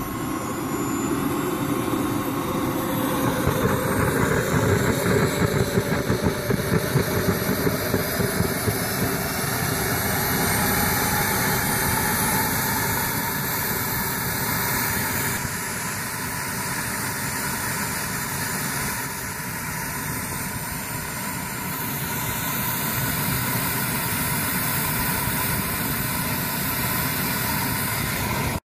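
ATJ 120 model jet turbine in a CARF Eurosport starting up and spooling to idle: a whine rising in pitch, with the level pulsing unevenly for several seconds before the turbine settles into a steady run.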